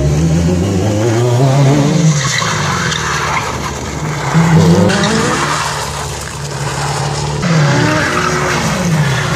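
BMW-bodied stunt car spinning in 360° donuts: its engine revs up and falls back several times while the rear tyres squeal and skid on the asphalt.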